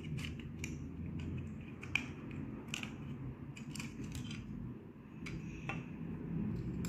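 Light, scattered plastic clicks and taps from the small white plastic case of an LED string-light controller being handled and its parts fitted back together around the circuit board.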